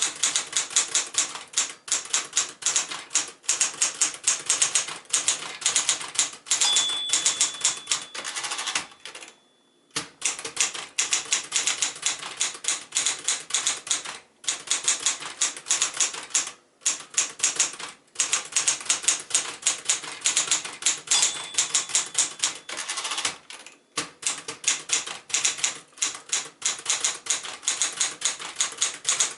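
Smith-Corona Galaxie II manual portable typewriter being typed on briskly: a fast run of key strikes with a few brief pauses, the longest about nine seconds in, and a faint ringing tone just before that pause.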